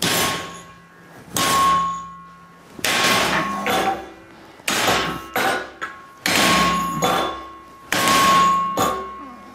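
Steel hammer striking a bolt threaded into a flange nut cold-welded to a steel plate held in a vise: about six heavy blows, roughly one every second and a half, with a few lighter hits between. Each blow leaves the plate ringing with a clear tone that fades over about a second. This is a break test of the spot-welded nut.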